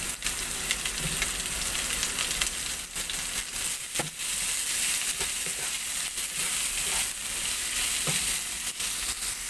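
Sliced onions frying in hot mustard oil in a nonstick wok, a steady sizzle, with a wooden spatula scraping and tapping against the pan as they are stirred.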